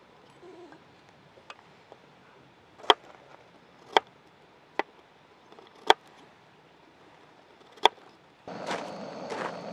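Sharp single knocks, about five of them at uneven gaps of one to two seconds. Near the end a louder, continuous rustling and scraping noise starts.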